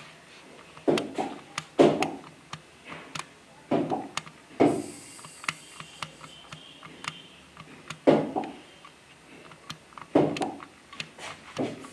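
Irregular taps, knocks and short scrapes of a writing tool on a board as a diagram is drawn. The loudest knocks fall about a second in, at two seconds, and around four and a half, eight and ten seconds.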